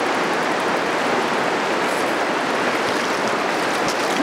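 Steady rush of fast-flowing river water running over a choppy stretch of current.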